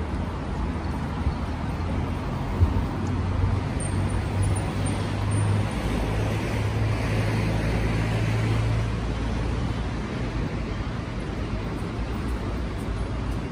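City street traffic noise: a steady wash of passing vehicles, with a low engine hum that builds and fades over several seconds in the middle and a single sharp knock about two and a half seconds in.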